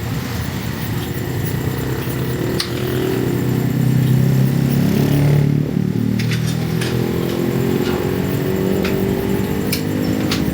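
An engine running with a shifting pitch, swelling to its loudest a few seconds in, dipping briefly, then holding steady, with scattered sharp clicks over it.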